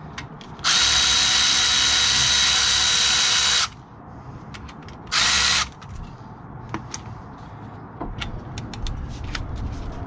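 Milwaukee M12 Fuel cordless 3/8-inch ratchet running and turning a fastener with a steady motor-and-gear whine. It runs once for about three seconds, then in a short burst of about half a second. Scattered light clicks follow.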